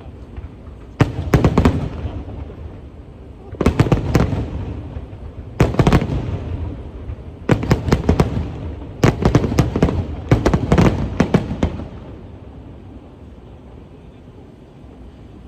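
Aerial fireworks bursting in bunches of several sharp cracks every second or two, each trailing off in an echo. The bursts stop about twelve seconds in, leaving steady low background noise.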